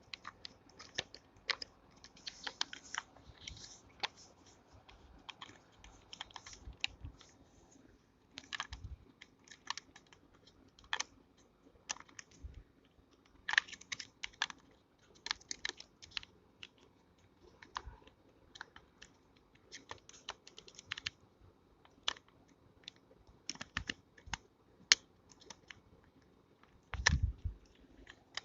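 Irregular small plastic clicks and taps of a beard trimmer and its snap-on attachment heads being handled, fitted and removed, with a duller knock near the end.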